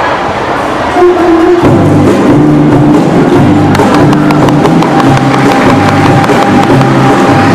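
Conducted ensemble of guitars and ukuleles starting up, with strummed chords over a repeating bass line. A first note comes about a second in and the whole ensemble joins just after.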